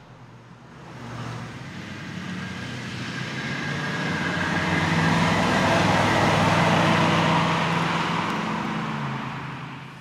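A 2002 Ford Thunderbird with a 3.9-litre V8 drives past at a steady cruise. The engine note and tyre noise swell to a peak about halfway through, then fade away.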